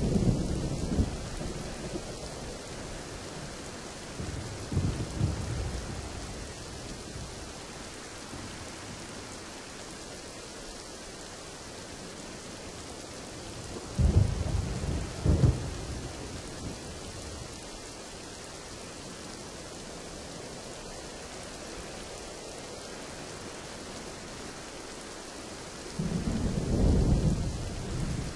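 Steady rain with thunder rumbling over it: a rumble at the start, a smaller one about five seconds in, two loud claps in quick succession about halfway, and a longer rumble near the end.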